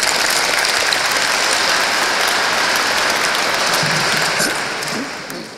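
A large seated audience applauding, the clapping fading away near the end.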